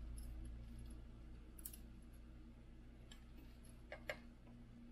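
A few faint clicks and taps of wires being handled and fed up a 3D printer's plastic cable chain: one about a second and a half in, a quick pair near the end. Under them a steady low hum.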